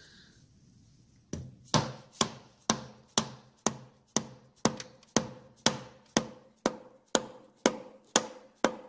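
Dead blow hammer tapping steadily on a stuck cover of a 1971 Triumph 650 engine, starting about a second in and keeping up about two light blows a second, each with a short ring. The cover is held fast by its gasket and glued-on sealant.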